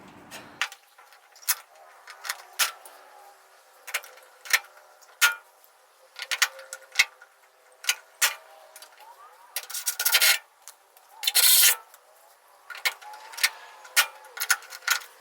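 Irregular sharp clicks and snaps of pop riveting on aluminium truck-bed panels, the rivet tool breaking off each rivet's mandrel. There are two short, noisy bursts about ten seconds in and again a second and a half later.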